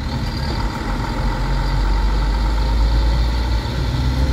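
Semi truck's diesel engine pulling under load as the truck moves off and turns onto the road, heard from inside the cab. Its low hum grows louder and heavier from about half a second in.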